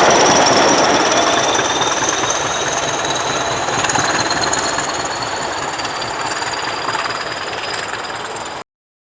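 Pair of English Electric Class 20 diesel locomotives running through at speed, a dense rattle of wheels on rail with thin high squealing tones that drift slightly upward. The noise slowly fades as they move off, then cuts off abruptly near the end.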